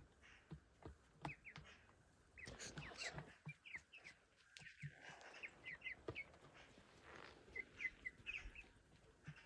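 Faint bird chirps: many short, high notes that slide down in pitch, scattered irregularly over near silence.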